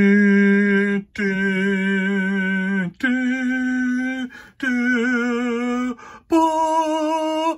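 A voice sings five long held notes in a slow tune that steps upward in pitch, each note about a second and a half with a slight waver.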